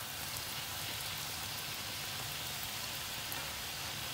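Petulla (Albanian fried dough squares) deep-frying in a pan full of hot oil: a steady sizzle with fine crackling.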